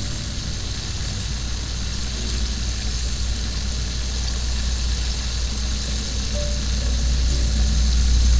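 Background music over a steady low rumble that slowly grows louder toward the end.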